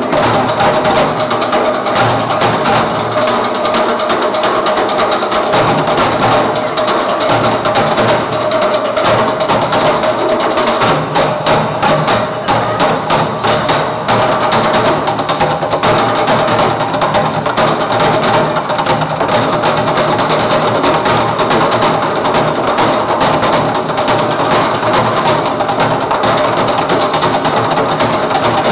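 Percussion ensemble playing fast, dense rhythms on recycled objects: continuous rapid knocking and drum-like strikes with wood-block-like clicks.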